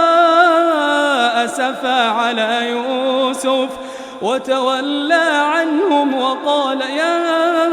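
A man's voice in melodic Quran recitation, drawing out "yā asafā" in long, ornamented held notes, with a brief lull about four seconds in.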